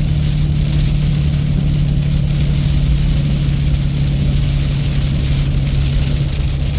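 Diesel truck engine running steadily with an even, unchanging note, with none of the exhaust-brake noise it had been making.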